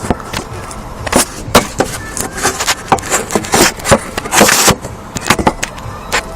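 Irregular sharp clicks and knocks of handling, with a short rustle about four seconds in.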